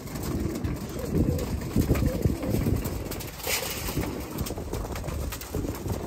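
Domestic pigeons cooing, a run of low, overlapping coos, with a brief rustle about three and a half seconds in.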